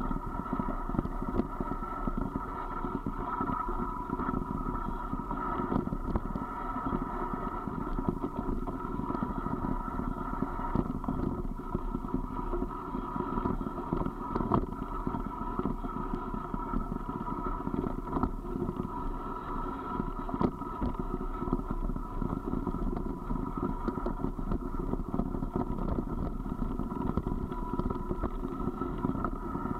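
Steady rumble and rattle of a ride down a loose gravel track: wheels rolling over stones, with many small knocks and jolts throughout.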